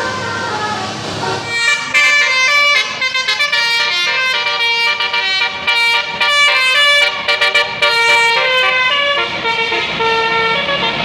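A telolet basuri musical air horn on a vehicle playing a fast tune of short notes, starting about two seconds in over vehicle engine and road noise and tailing off near the end.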